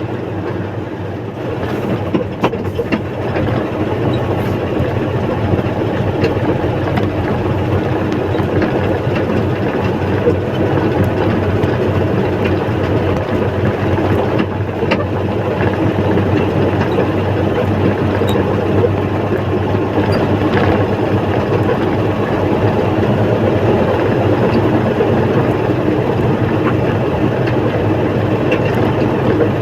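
Backhoe's diesel engine running steadily under work, growing a little louder a few seconds in.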